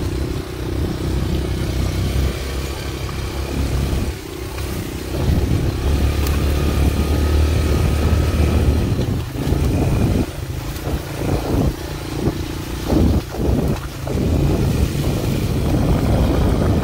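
Honda Fat Cat TR200's small single-cylinder four-stroke engine running while the bike is ridden. The throttle is held open through the first half. In the second half the engine note drops and picks up again several times as the throttle is closed and reopened.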